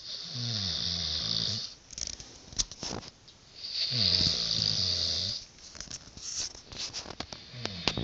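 Snoring: two long, rattling snores of about one and a half to two seconds each, with a third starting near the end. Light clicks and rustles fall in the gaps between them.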